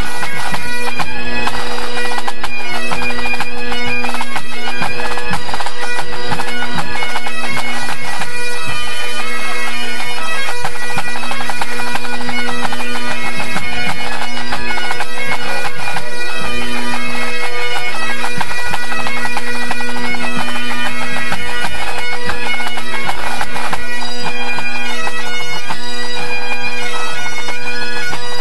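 A pipe band's Great Highland bagpipes playing together, loud and unbroken: the drones hold one steady low note under the chanters' melody.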